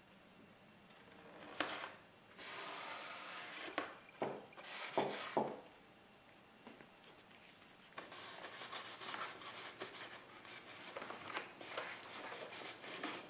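Hands rubbing and handling the foam fuselage of a model plane, heard as stretches of scratchy rubbing with a few sharp taps and clicks in the first half and a quieter spell in the middle.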